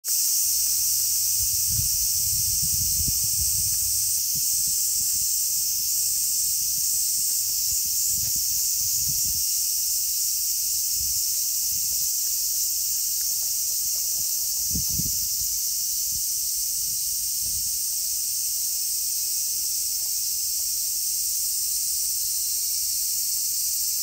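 Summer cicadas droning in a steady, dense chorus, high-pitched and unbroken, with a few soft low bumps against the microphone mixed in.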